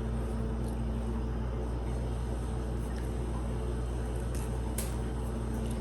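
Steady low hum with a couple of faint, light clicks near the end.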